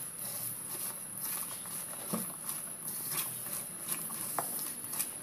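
Cauliflower florets squished and tossed by hand in a thick wet spice batter in a steel bowl: soft, irregular squelching and patting as the pieces are coated. A steady high-pitched whine runs underneath.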